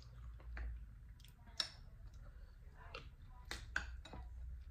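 Scattered sharp clicks and taps of eating: a metal spoon against a glass bowl and fingers picking through crab and chicken in gumbo, over a low steady hum.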